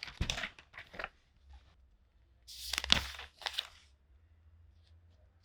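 Paper pages being turned: a rustling flip near the start, then a second, louder page turn about two and a half seconds in, each a short crisp swish of paper.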